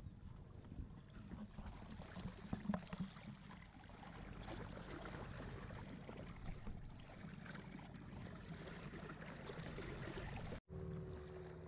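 A motorised wooden longboat running along a river, its engine a steady low rumble under the rush of water along the hull, with a few knocks in the first seconds. After a sudden break near the end the engine drone is steadier, with a clear hum.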